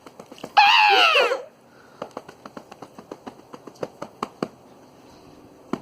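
A loud, high-pitched cry about half a second in, lasting about a second, its pitch rising then falling. It is followed by a run of light, irregular clicks.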